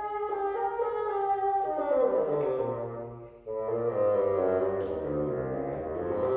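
Unaccompanied bassoon playing a slow melodic phrase that steps down into its low register, with a short breath about three and a half seconds in before the low notes carry on.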